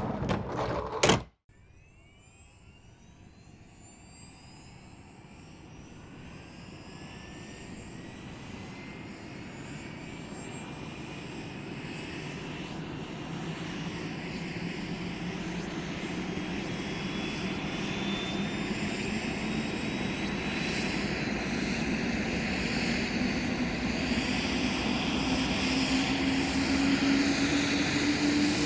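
Helicopter turbine engine starting up: a whine that climbs slowly and steadily in pitch and loudness as the engine spools up, after a brief loud sound in the first second.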